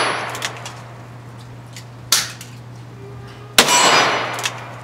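Smith & Wesson Model 327 TRR8 .357 Magnum revolver firing 38 Special target wadcutter loads. There are two shots about a second and a half apart, the second ringing on longer, and the tail of an earlier shot is dying away at the start.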